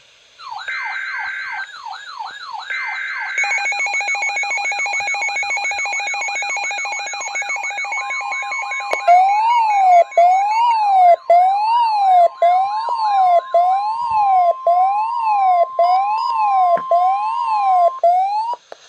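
Several electronic emergency sirens layered together: fast repeating yelp sweeps and a slower regular rise-and-fall wail over other warbling tones, loud throughout. A steady high tone joins about eight seconds in, and everything cuts off abruptly near the end.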